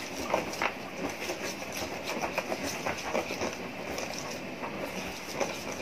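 Whisk beating pancake batter in a stainless steel bowl: a steady run of quick clicks and scraping of the whisk against the metal bowl, with the wet slap of the batter.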